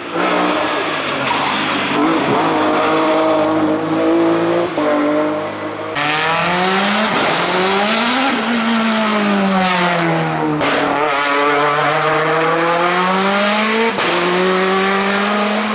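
Race-car engines at full throttle on a hillclimb. First one car runs past, then a rally-spec Ford Escort accelerates up the hill, its engine note climbing and dropping with each gear change.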